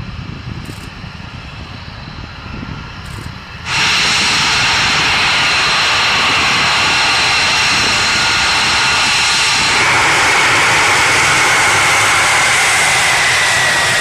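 Faint low jet rumble, then about four seconds in a sudden switch to the loud, close whine of an F-22 Raptor's Pratt & Whitney F119 turbofan engines as it taxis. Several high steady tones run over a rushing roar, and one of them slowly falls near the end.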